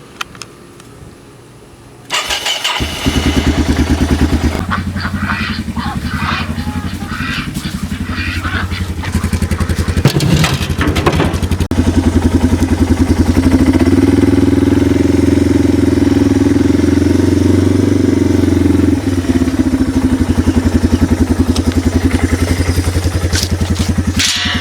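A small vehicle engine starts about two seconds in and keeps running with an even pulsing beat, getting a little louder for a few seconds in the middle.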